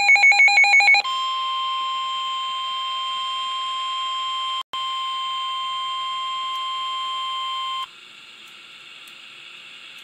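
Emergency Alert System signal for a severe thunderstorm warning: the tail of the rapid, warbling digital header tones, then a steady alert attention tone for about seven seconds, broken by a brief dropout midway, which cuts off suddenly to faint hiss.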